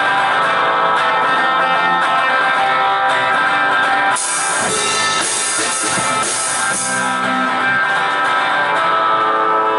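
A small rock band playing live: guitar and bass guitar ring out in sustained chords over drums. About four seconds in, cymbals crash in loudly and wash over the band for a few seconds.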